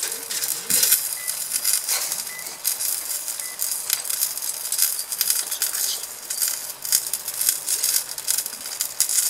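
Food crackling and sizzling on a camp grill, a dense irregular crackle with a light knock about two seconds in.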